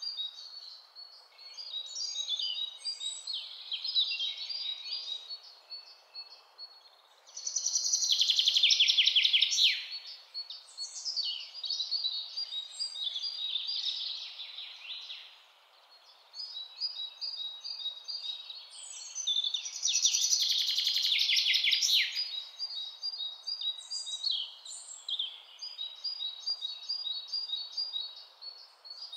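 Recorded birdsong ambience: several birds chirping and singing over a soft steady hiss. Two louder, fast trills come about eight and twenty seconds in.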